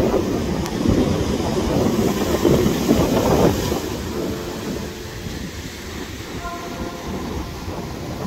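Wind buffeting the microphone over surf on an open beach, a heavy rumble that eases about halfway through. A few faint held tones sound in the second half.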